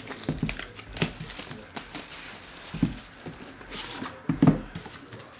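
Plastic shrink-wrap being torn and peeled off a cardboard trading-card box, crinkling, with several knocks from the box being handled. The loudest knock comes about four and a half seconds in.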